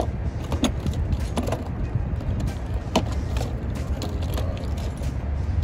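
A few sharp clicks and knocks of tools and parts being handled under the hood, over a steady low rumble.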